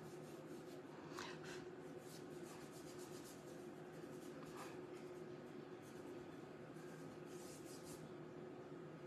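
Soft pastel being rubbed and blended into textured Pastelmat paper with a sponge-tipped tool and fingertips: faint irregular scratchy strokes, a few stronger ones about a second in, midway and near the end. A steady low hum runs beneath.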